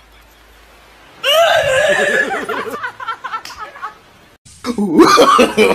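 A person's high-pitched squealing laugh starting about a second in, then, after a short lull, a burst of rapid ha-ha-ha laughter near the end.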